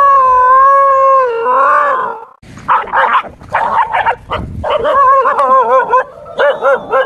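A dog howls in one long drawn-out call that breaks off suddenly, then a dog barks and yelps in quick short calls.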